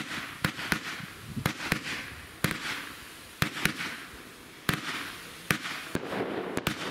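Röder fish-effect firework batteries firing: about ten sharp, irregularly spaced shots, each followed by the hissing fizz of the silver fish stars swimming through the sky.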